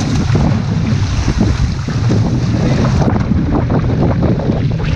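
Wind buffeting the microphone over water rushing and splashing against a one-person outrigger canoe's hull and ama as it runs through rough chop, with frequent short splashes.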